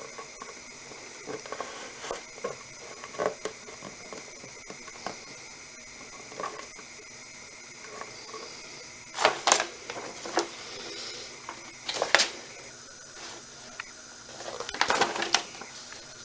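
Hard plastic parts of a pet water fountain being handled and fitted together: scattered light clicks and taps, with louder clattering knocks about nine, twelve and fifteen seconds in.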